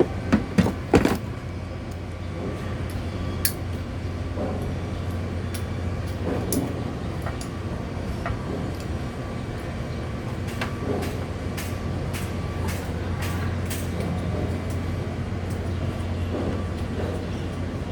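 Metal parts and hand tools clicking and clanking as the air cleaner box is worked loose to get at the carburetor, with a few sharp knocks about a second in. A steady low hum runs underneath.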